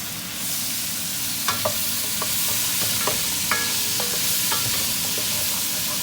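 Chopped onions and vegetables sautéing in a pot: a steady sizzle that swells about half a second in, with a stirring utensil clinking against the pot several times.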